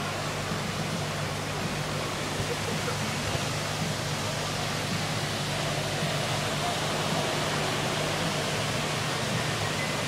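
Steady rush of water pouring through canal lock gates, with a boat engine's low, even idling hum underneath.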